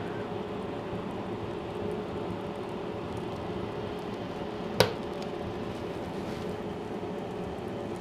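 Wood-burning stove fire burning with a steady rushing hum, and a single sharp pop a little under five seconds in.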